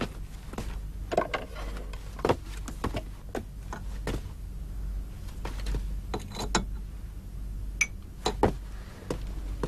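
Bowls and serving utensils clinking and knocking now and then as a bowl of rice is dished up and soup is poured over it, over a steady low hum.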